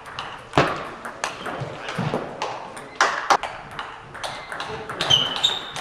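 Table tennis rally: the celluloid ball clicks sharply off bats and table in an irregular run of about two or three hits a second, with a few short high squeaks near the end.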